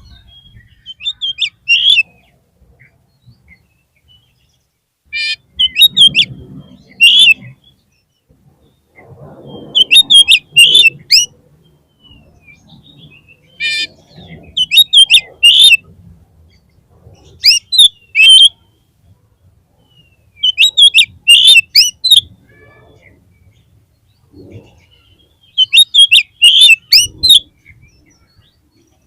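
Oriental magpie-robin (kacer) calling in short, loud bursts of sharp, rapidly bending chirps, a burst every two to four seconds.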